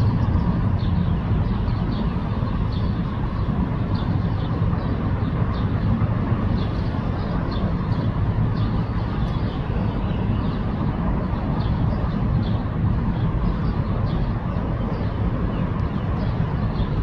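Steady low outdoor rumble with faint high chirps repeating about once a second.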